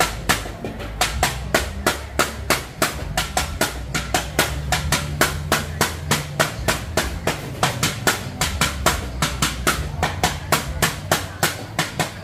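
Rapid, even knocking, about four sharp strokes a second with varying force, over a low steady hum.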